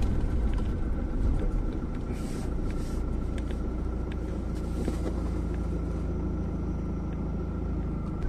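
Car driving slowly, heard from inside the cabin: a steady low engine and tyre rumble with a faint steady high whine, and two brief hisses about two and five seconds in.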